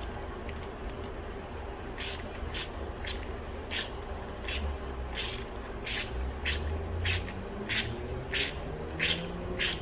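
Helicoil thread insert being turned into a tapped exhaust-manifold stud hole with its installing tool. From about two seconds in, short rasping strokes repeat about every two-thirds of a second.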